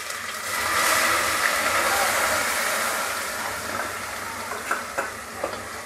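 Chopped onions spooned into hot mustard oil with cumin, sizzling: a hiss that swells about a second in and then slowly dies down. A few clicks of a steel spoon against the glass bowl near the end.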